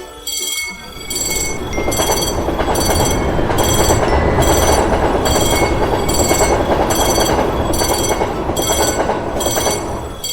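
Level-crossing warning bell ringing about twice a second while a train passes over the crossing. The train's rumble comes in about two seconds in and dies away near the end.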